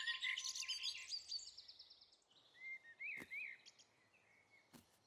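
Cartoon birdsong sound effect: a flurry of many quick, high chirps and tweets that fades away over the first two seconds, then a few single chirps about three seconds in, with faint clicks.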